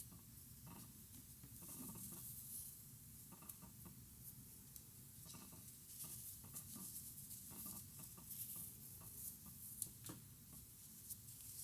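Faint handwork sounds of cotton yarn and a crochet hook: irregular small clicks and soft rustles, a few each second, over a quiet hiss.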